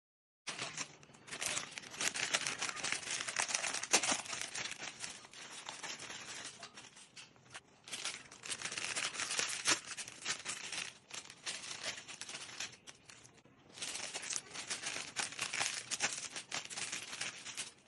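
Crinkling and tearing of plastic snack packets as they are handled, torn open and emptied onto a tray, in three long bouts with short pauses between them.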